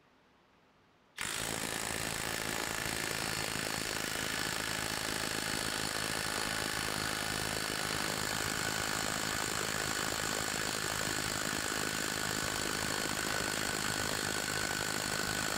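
Handife cordless impact wrench hammering steadily on a bolt at full power, a continuous fast rattle of impacts that starts abruptly about a second in and keeps going without a break.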